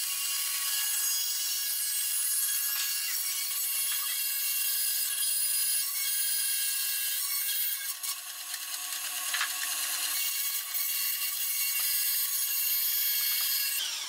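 Benchtop bandsaw running and cutting through a wooden disc: a steady high-pitched whine over the hiss of the blade in the wood, dipping briefly a little past halfway.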